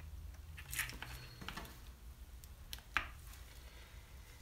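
A few faint clicks and light scrapes from handling two-part epoxy, about three in all, over a low steady hum.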